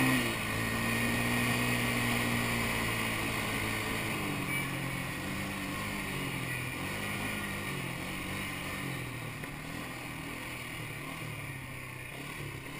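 Quad bike engine running as it rides along the sand: its note drops sharply at the start, then wanders up and down and slowly fades, over a steady hiss.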